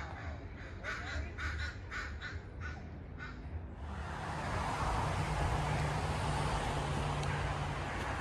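A crow cawing in a quick series, about three caws a second. About four seconds in, a louder steady rushing noise takes over and the caws stop.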